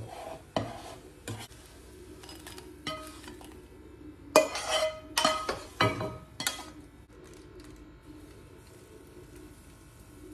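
Plastic slotted spatula scraping and knocking against a nonstick frying pan as fried pancake strips are lifted out, with a burst of louder clatters about halfway through as the pan is tipped and the strips are scraped off into a bowl.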